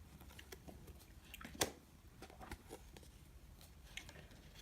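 Glossy trading cards being flipped and slid off one another in hand: faint scattered clicks and rustles, with one sharper click about one and a half seconds in.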